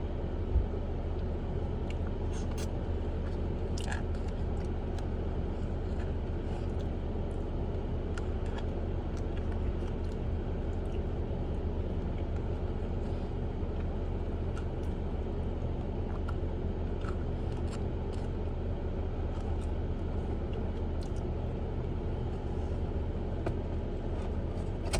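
Steady low hum of a car idling, heard from inside the cabin, with a few faint clicks scattered through it.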